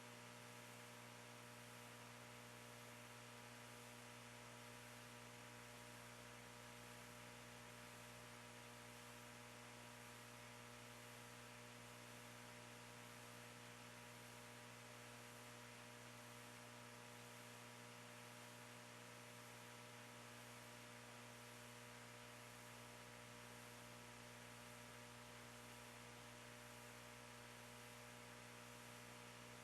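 Near silence: a faint, steady electrical hum, as from the sound system, with light hiss.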